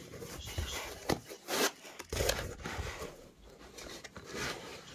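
Rustling and scraping as bicycle crank arms are pulled out of a foam packing insert in a cardboard box, in a run of uneven bursts.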